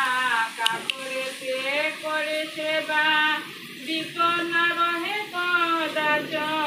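A woman's voice singing a Bengali devotional puja chant in long, held, sliding notes.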